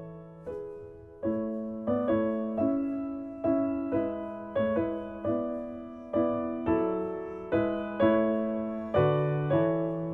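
Slow piano music: chords struck about every three-quarters of a second, each ringing out and fading before the next.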